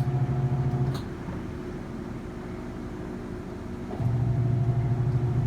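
Portable washing machine in its spin cycle: the spin motor runs with a steady low hum. The hum drops away after about a second and comes back about four seconds in, with a click near the start.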